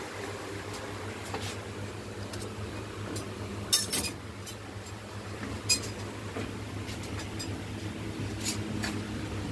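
Scattered light clinks of cast metal gate-grill ornaments being handled on the shop racks, loudest a little under four seconds in, over a steady low hum.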